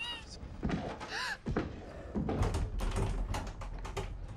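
Two short high cries from a voice, then a fast run of knocks and bangs over a low rumble in the second half.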